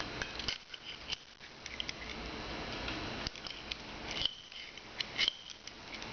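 Small clicks and scrapes of metal as the old spring of a pair of locking pliers is worked loose with a thin stick, with a few brighter clinks in the second half, over a steady hiss.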